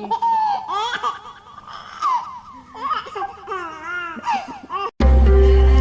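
A baby vocalizing in a run of short, high, sliding squeals and babbles. About five seconds in it cuts off suddenly and loud music begins, with steady held tones over a heavy bass.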